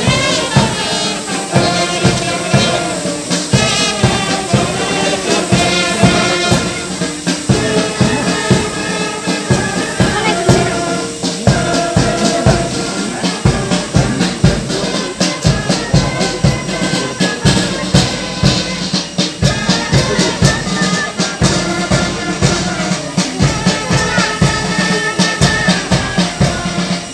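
Brass band playing march music, brass melody over a steady drum beat, for a parade march past.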